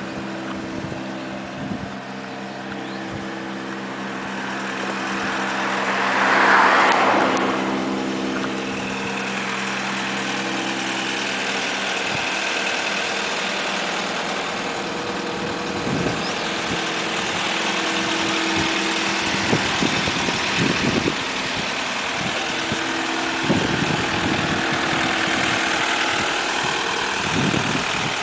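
Renault Master van's diesel engine idling steadily, heard close by. A louder rush of noise swells and fades about six to seven seconds in.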